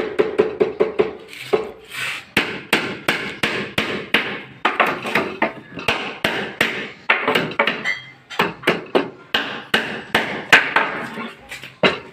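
Hammer striking wood, a long run of quick, uneven blows a few times a second, as when nailing together wooden furniture parts.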